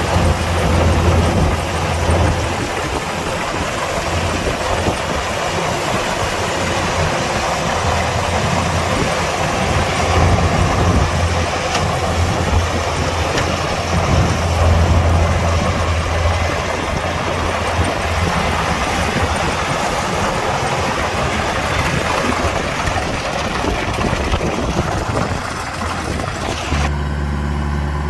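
Kubota DC-105X combine harvester running: a loud, steady machinery noise over a low engine hum that swells and fades. Near the end it changes abruptly to a smoother, lower engine hum as the higher noise drops away.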